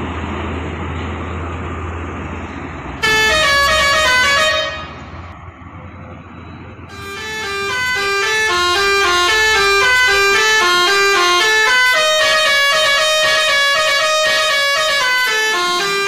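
Traffic rumble, then about three seconds in a bus telolet horn cuts in loudly: a multi-tone musical air horn playing a quick stepping tune. It breaks off briefly, then plays on continuously from about seven seconds.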